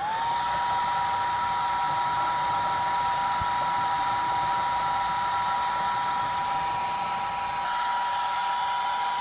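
Handheld hair dryer switched on, its motor spinning up briefly in pitch and then running with a steady whine and blowing air, heating the adhesive of a heat-activated Screenmend screen patch.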